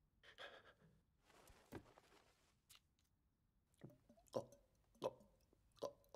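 Faint gulps of someone drinking: a few short swallows, about a second apart in the second half, with near silence around them.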